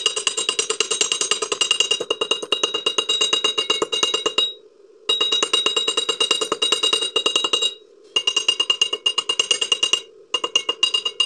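Welder's chipping hammer tapping rapidly on a fresh stick-weld bead on steel plate, knocking off the slag, each strike ringing on the metal. The strikes come in runs of a few seconds, with short pauses about four and a half seconds in, near eight seconds and near ten seconds.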